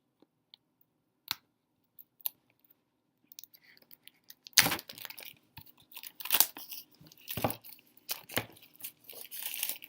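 Hands handling a small cardboard tarot-card box and its packaging close to the microphone: a few faint taps, then from about halfway a run of knocks, scrapes and crinkly rustling.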